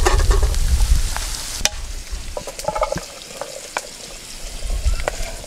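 Diced green beans, carrots and peppers sizzling in oil in a metal frying pan over a wood fire, with scattered clicks and scrapes of the vegetables being stirred. A low rumble runs under the first couple of seconds and then fades.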